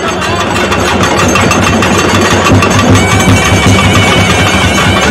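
Festival drums beaten loudly and rapidly in a dense, unbroken roll.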